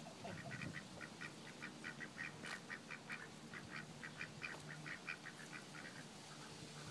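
Ducks quacking at a distance: a fast run of short quacks, about five a second, faint, stopping about six seconds in.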